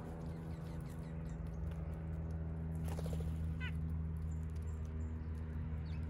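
Backyard birds at a feeder: a short descending chirp about three and a half seconds in and faint scattered ticks, over a steady low hum.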